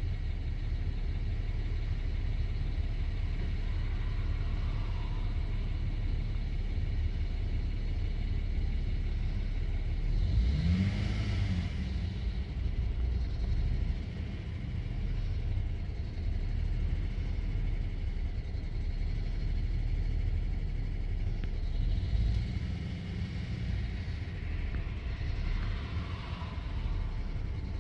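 BMW N53 straight-six petrol engine in a 2008 E90, running with a rough, unsteady idle. About ten seconds in it is briefly revved, rising in pitch, then drops back and keeps running unevenly. This is the idle that can no longer hold a steady 700 rpm once the engine has been revved; the car has logged cylinder injection cutout and low fuel pressure codes.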